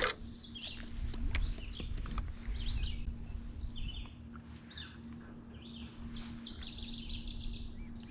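Small songbirds chirping and calling, with a fast trill of repeated notes late on. A steady low hum runs underneath.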